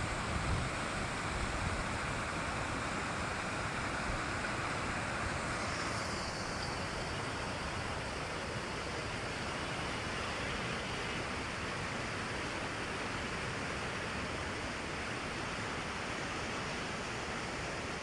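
Fast water rushing and churning over rocks in a stony river channel below a dam gate, a steady hiss of white water. Its tone shifts slightly about six seconds in.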